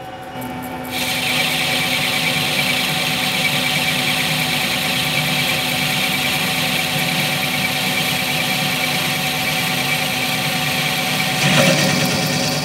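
Celtic 14 metal lathe taking a roughing cut: the spindle runs while the turning tool cuts the spinning bar, giving a steady high squealing hiss of cutting over the machine's running hum. The cutting noise comes in sharply about a second in and swells briefly near the end.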